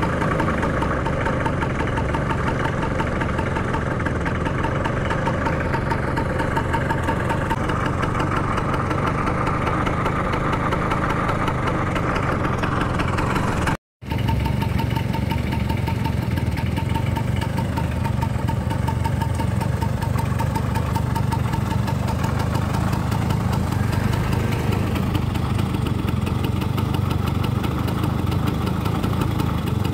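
Two-stroke Vespa PX scooter engine running steadily, with a brief total cut-out a little under halfway through.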